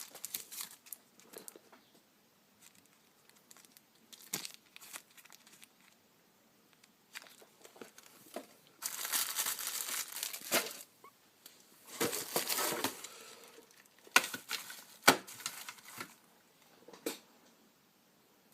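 Packaging crinkling and tearing as parcels are unwrapped by hand, in irregular bursts with a few sharp clicks between them.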